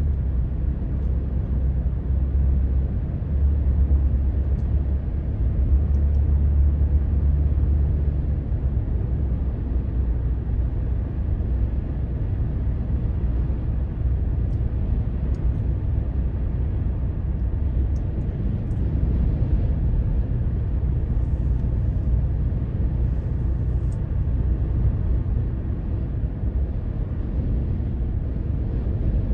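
Steady road and engine rumble heard inside a car's cabin while driving at highway speed, swelling a little for a few seconds near the start.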